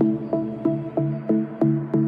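Electronic background music: a steady pattern of short plucked synth notes, about three a second, over a bass line.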